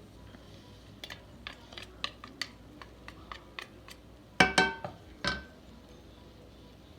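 Can of condensed cream of mushroom soup being opened: a run of small clicks, about three a second, then a few loud clanks of metal with a short ringing.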